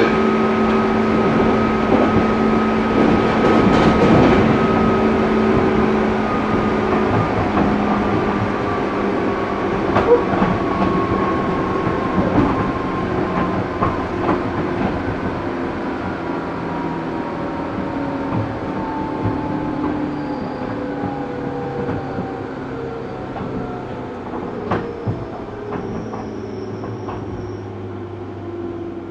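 Musashino Line 205-series electric train running, its motor and gear whine falling slowly in pitch as the train slows. A few sharp rail-joint clacks come through, one about ten seconds in and another near the end.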